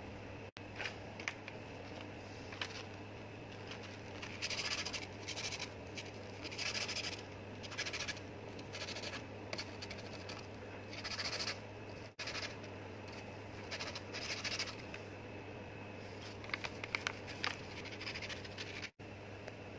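A cloth rag rubbing and wiping a steel part of a pneumatic chipping hammer, in short scratchy strokes of under a second each, over a steady low hum.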